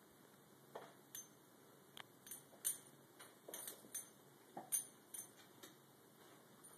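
A German Shorthaired Pointer snapping at a spot of light on a boarded wall: about a dozen quick, irregular clicks and taps of its jaws and muzzle, the loudest near the middle.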